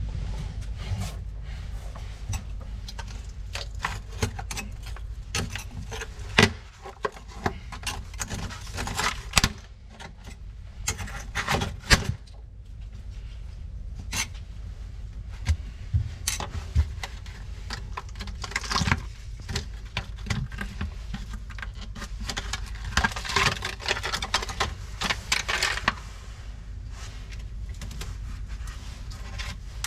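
Hand work with tools and materials: a run of sharp clicks and knocks with stretches of scraping and rubbing, over a steady low hum.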